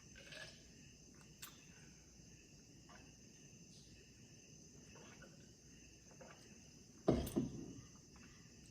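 Steady high insect chirring, like crickets, under faint scattered clicks of eating. About seven seconds in, a louder double thump.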